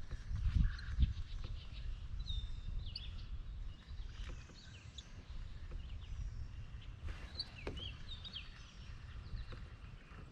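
Birds chirping in two short bouts of quick calls, over a low steady rumble, with a couple of soft low thumps about a second in.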